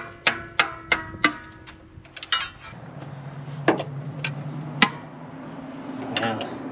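Hammer striking a sticking valve in cylinder five of a 1950 Ford flathead V8 to knock it back down, metal on metal with a ringing note. Five quick strikes come about a third of a second apart, then a few light taps, then three slower strikes near the middle. A low steady hum sits underneath from about three seconds in.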